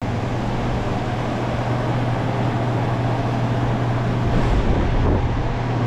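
Steady low engine hum over a constant rushing noise, as heard from inside a moving vehicle.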